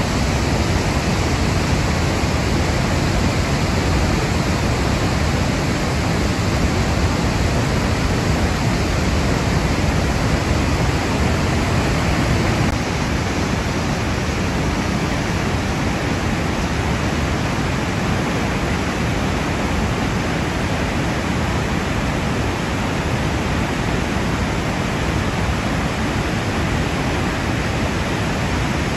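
Barron Falls in full flood after heavy cyclone rain: a loud, steady roar of water plunging down the gorge's cliff face. The level drops slightly about twelve seconds in.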